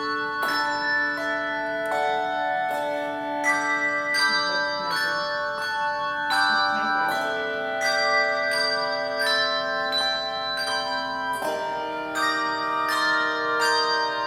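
Handbell choir playing: many struck bells ringing together in chords, lower notes held and ringing on while quicker higher notes sound above them.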